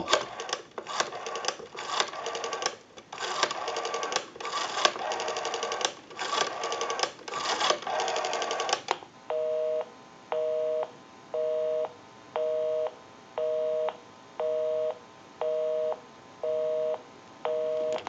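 Western Electric 302 rotary dial being turned and let go digit by digit, each digit a burst of clicking as the dial runs back. About nine seconds in, a busy signal takes over: an even two-tone beep that pulses on and off about once a second, because the number dialled is in use.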